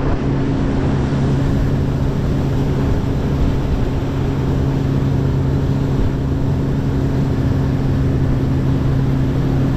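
Boat's outboard motor running steadily at cruising speed, a constant hum over a loud wash of wind and water noise.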